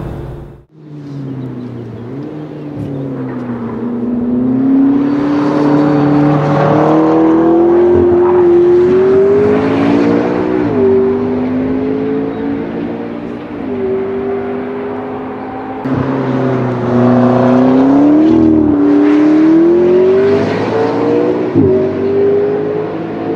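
McLaren 650S twin-turbo V8s accelerating hard through the gears, one car after another. The engine note climbs steadily and drops sharply at each upshift.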